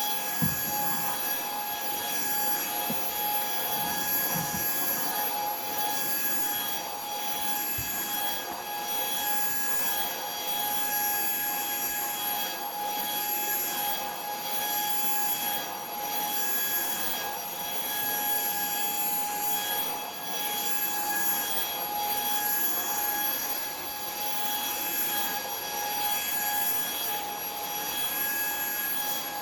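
Puweike cordless stick vacuum running: a steady high-pitched motor whine that swells and fades slightly every second or two, with a couple of faint knocks near the start.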